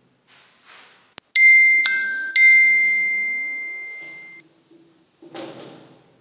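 A three-note electronic chime, high, lower, then high again, each note struck sharply and ringing out, fading away over about two seconds, just after a small click. Soft swishes of a whiteboard eraser wiping the board come before and after it.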